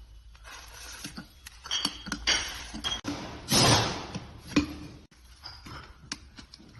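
Metal parts of a 1-inch metal air-operated diaphragm pump clinking and knocking as a side chamber is taken off and the diaphragm removed, with a longer scraping slide about three and a half seconds in.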